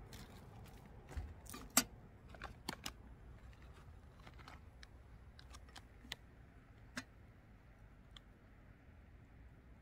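Sparse, irregular small clicks and crackles, bunched about one to three seconds in and scattered after, from a campfire and a plastic ration pouch being handled, over a faint low rumble.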